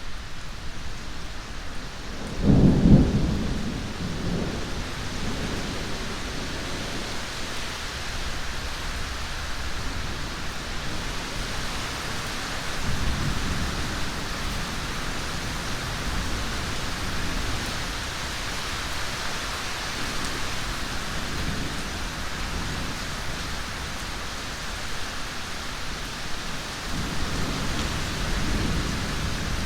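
Steady heavy rain with rolling thunder: a loud clap and rumble about two and a half seconds in that fades over several seconds, a softer rumble about halfway through, and more thunder building near the end.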